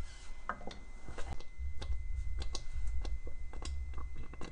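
Thick sweet-potato starch paste bubbling in a steel pot on the stove, giving irregular soft pops and clicks over a low rumble. The bubbling is the sign that the paste is cooked.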